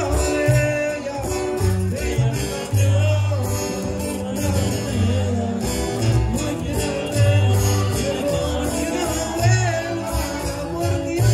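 Norteño band music with accordion, guitar and bass under a singing voice.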